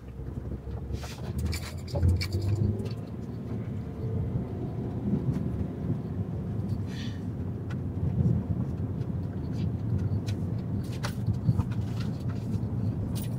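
A car driving slowly, its engine and tyres making a steady low rumble heard from inside the cabin, with a few light knocks and clicks.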